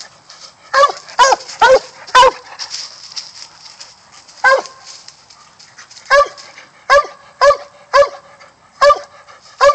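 Coon hound in training barking up a tree at a caged raccoon hung in the branches. It gives about eleven short, sharp barks, some in quick runs of three or four and some alone: the dog is treeing.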